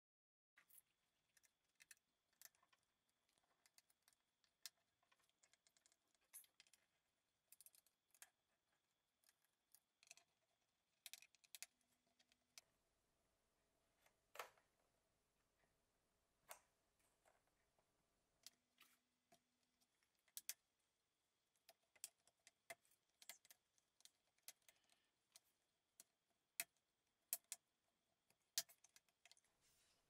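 Sparse, irregular sharp clicks and taps over near silence, from hands and small tools working on a Lenovo L14 laptop's plastic case.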